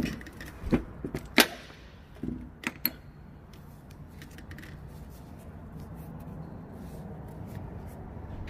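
Clicks and knocks of metal gear-case parts being handled on a rice transplanter's rotary case: several sharp ones in the first three seconds, one with a brief ring, then only a low steady hum.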